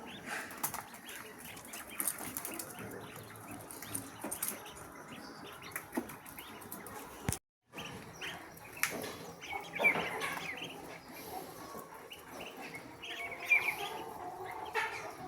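Chickens clucking and chirping, with scattered sharp taps throughout. The sound drops out briefly about halfway through.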